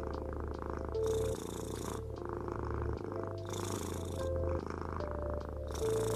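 Tabby cat purring steadily close up, the purr changing tone every second or so with its in- and out-breaths.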